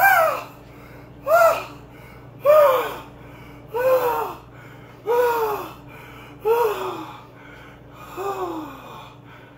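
A person's voice moaning and gasping in a staged fake orgasm. Seven loud moans come about one every 1.3 seconds, each swooping up and then down in pitch, and the last two are weaker.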